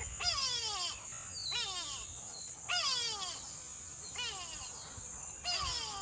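A series of short, falling, nasal animal calls, about one a second, over a steady high-pitched drone.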